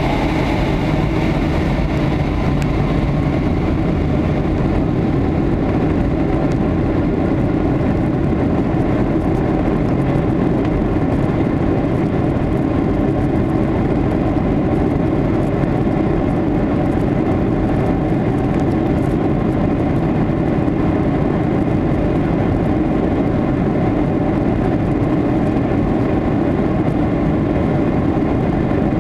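Steady jet-engine rumble and cabin noise inside a Boeing 757-200 taxiing at low power.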